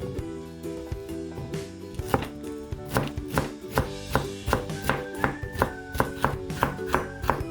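Knife chopping on a cutting board in a steady rhythm, about two to three cuts a second, from about two seconds in, with background music.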